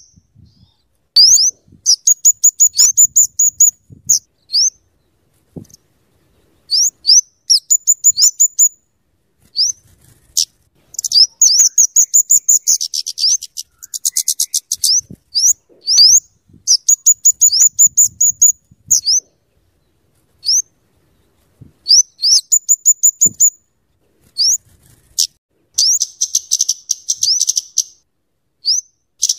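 Flowerpecker (kemade or cabe-cabean) calling: sharp, high rising notes and fast runs of ticking chatter, in bursts a second or two long with short pauses between.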